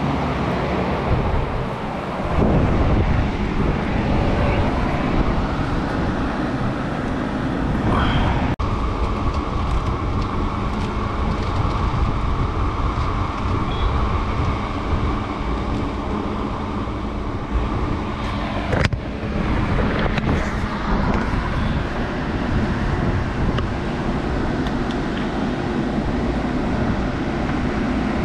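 Large drum fan running with a steady whooshing hum. A sharp click sounds about eight seconds in and another about nineteen seconds in.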